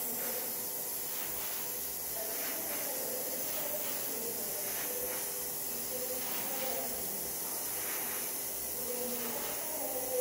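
Airbrush spraying thinned lacquer paint: a steady, even hiss of air and paint leaving the nozzle.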